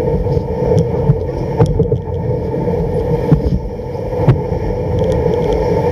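Home-made kick sled running over snow: a steady scraping rumble of the runners with irregular knocks as it bumps along.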